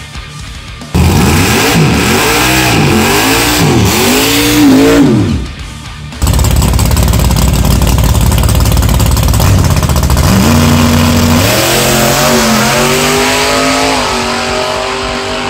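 Drag car engine revving hard in repeated rising and falling blips, then a sudden loud full-throttle run from about six seconds in, the engine's pitch climbing in steps as it shifts through the gears.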